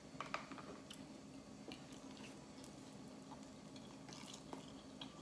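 Faint close-miked eating sounds: soft wet mouth clicks and the light tap of chopsticks, with a soft bite into a chicken pot sticker about four seconds in, over a low steady hum.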